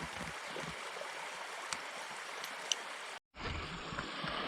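Mountain stream flowing steadily over rocks, a constant rushing of water; the sound cuts out for a moment a little after three seconds and resumes.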